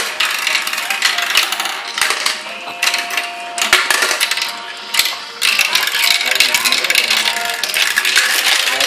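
Plastic marble run with marbles clattering and rattling down its plastic tracks, funnels and spinners: a fast, continuous stream of small clicks.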